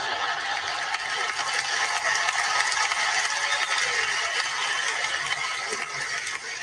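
A large audience laughing and applauding, a steady dense clatter of clapping that eases off near the end.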